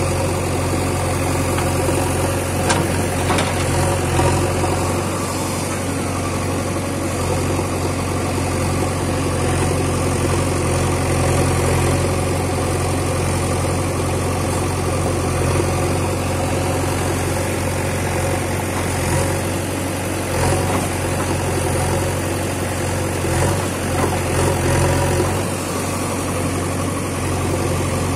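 JCB 3DX backhoe loader's diesel engine running steadily while the machine works, with a few faint knocks from the arm and bucket.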